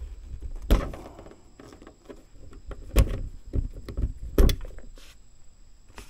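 Small screwdriver prying at the retaining clip on a door lock cylinder: a few sharp metal clicks and taps with light scraping in between.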